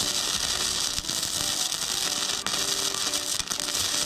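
Semi-automatic wire-feed (MIG) welding arc from an EENOUR MIG120L welder set to about 55 amps on 1.2 mm steel plate: a steady frying crackle and hiss with a few sharper pops.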